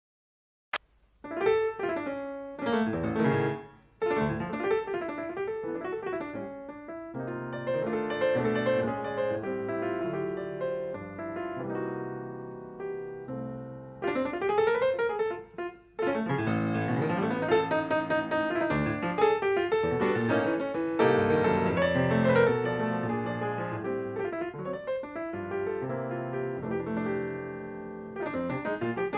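Jazz piano playing, from a live FM broadcast recorded on cassette tape. It starts about a second in after a brief silence and a click, and it falls almost silent twice, briefly.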